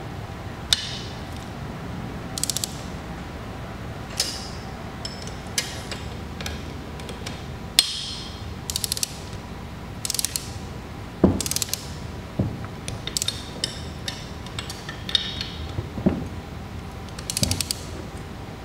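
Ratcheting torque wrench tightening the cross-bolt nuts of a bulls-eye sight flow indicator in stages toward 5 foot-pounds: short runs of rapid ratchet clicks as the handle swings back, single sharp clicks between them, and a few duller metal knocks about midway and later on.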